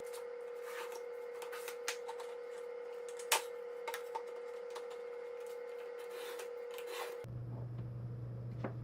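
Light scraping and scattered small clicks of iron-on edge banding being trimmed flush on melamine drawer sides, over a steady hum that gives way to a lower hum about seven seconds in.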